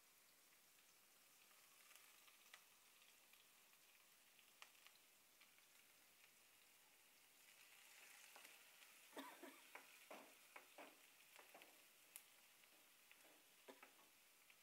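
Faint sizzle of chopped onions frying in a pan, with a cluster of light knocks and scrapes from a wooden spatula against the pan about eight to eleven seconds in, and a few more near the end.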